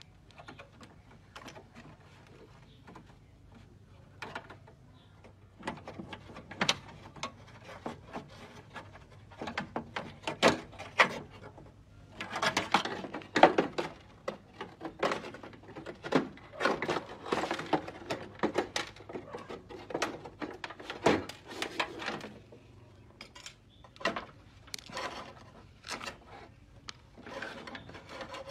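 Hand tools and loose parts clicking, knocking and scraping against the bare sheet-metal shell of a stripped car door as it is taken apart. The sounds are irregular, sparse at first and busiest through the middle.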